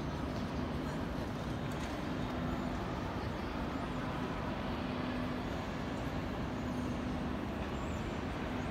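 Steady low rumbling background noise of a large hall, with a faint low hum that comes and goes every second or so.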